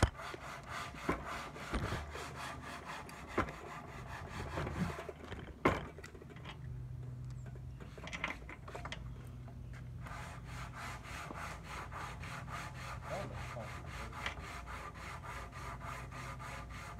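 Rubbing and scraping handling noise close to the phone's microphone, with a few sharp clicks and knocks in the first half, the strongest about six seconds in, as a key is fiddled in the old steering lock of a 1952 Zündapp motorcycle, turned the wrong way so it does not lock. A low steady hum sits underneath from about six seconds on.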